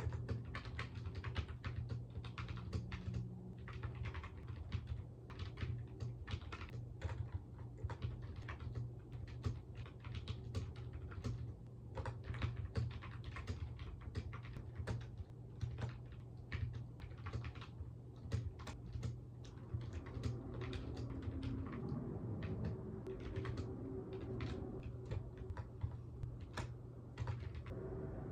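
Typing on a computer keyboard: a fast, uneven patter of key clicks with short pauses, which stops near the end. A steady low hum runs underneath.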